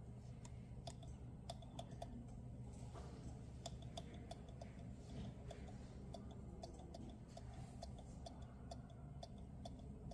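Buttons on a refrigerator's controller clicking faintly and irregularly, one to three presses a second, over the refrigerator's steady low hum.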